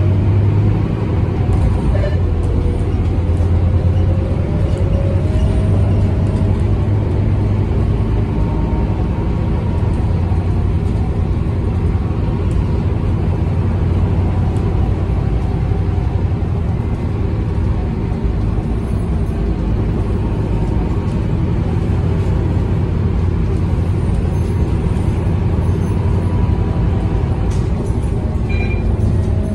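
Inside a Scania K230UB bus under way: the Scania DC9 8.9-litre five-cylinder diesel runs with a steady low drone, while the ZF Ecomat 6HP 502C automatic gearbox gives a faint whine that slides in pitch as the bus changes speed, near the start and again near the end (the 'ZF melody').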